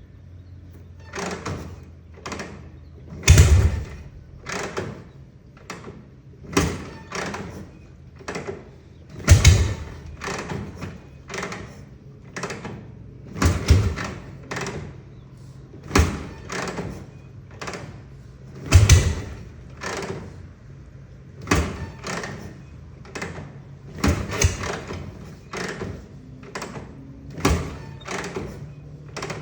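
1960 Harley-Davidson FL Panhead V-twin being kicked over cold, coughing and popping irregularly about once a second without settling into a run, with a few much louder pops. It is a hard cold start, which the owner thinks may come from a failing solid-state condenser replacement.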